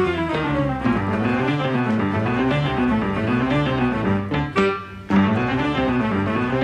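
Instrumental background music with a bouncy melody that rises and falls over and over. It breaks off briefly about four and a half seconds in, then picks up again.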